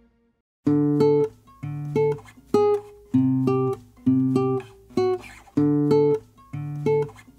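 Background music: a guitar playing short, rhythmic chords that start after a brief silence, under a second in.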